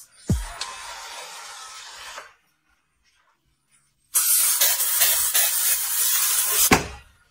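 Handheld steam cleaner jetting steam with a steady hiss, in two bursts: a quieter one of about two seconds, then after a pause of near silence a much louder one of about two and a half seconds. A thump opens the first burst and another closes the second.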